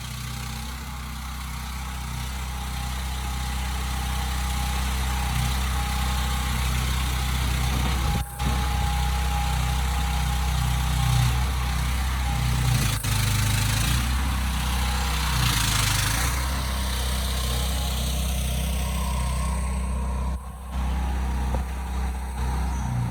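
An engine running steadily with a low, even hum, cut off briefly twice.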